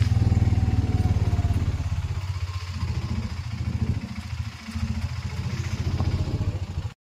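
Motorcycle-type engine running at low speed with a quick, even low throb, easing off briefly partway through; it cuts off abruptly near the end.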